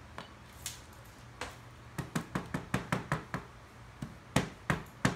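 Small metal hammer of a fossil dig kit tapping quickly on the chocolate dig block, about five knocks a second. The knocks begin about two seconds in, pause briefly, and start again near the end.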